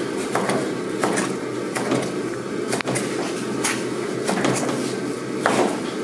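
Chef's knife slicing raw stingray (skate) flesh into thin strips on a plastic cutting board. The blade knocks against the board about once or twice a second, over a steady low background noise.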